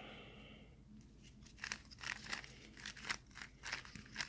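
Layers of a GAN 356 Air plastic speed cube being turned, a quick irregular run of short clicking clacks that starts about a second in.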